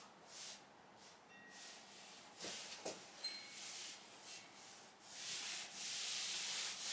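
Hands rubbing and smoothing carpet down onto a glue-coated hardboard panel, a soft scratchy brushing that comes in swells and grows louder and steadier over the last couple of seconds. A couple of light knocks come about two and a half seconds in.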